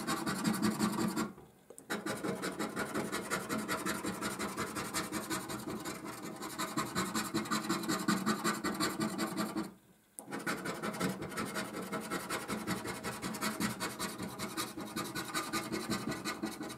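A coin scraping the latex coating off a paper scratchcard in rapid back-and-forth strokes. It stops briefly twice, about a second and a half in and about ten seconds in.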